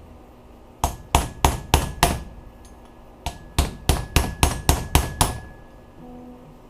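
Hammer blows on metal, a run of five and then, after a short pause, a run of eight at about three a second, with a faint metallic ring, typical of driving out a bushing during transmission work.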